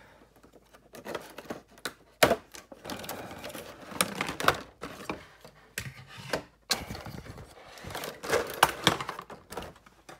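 Clear plastic blister packaging clicking and crinkling as plastic action figures are pulled out of their moulded tray, with irregular sharp knocks of plastic on plastic, loudest a couple of seconds in and again near the end.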